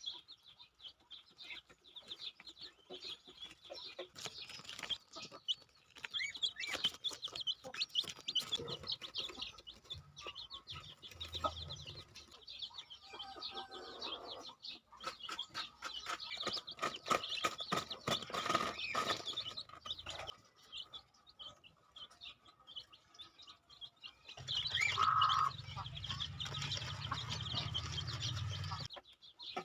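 Chickens clucking and calling, with many short high chirps throughout. A low steady hum joins in for the last few seconds.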